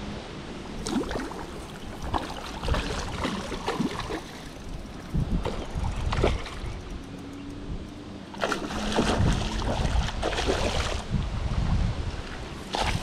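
Hooked trout splashing and thrashing at the water's surface while a landing net is pushed through the water and lifts it out, in irregular bursts. Wind rumbles on the microphone throughout.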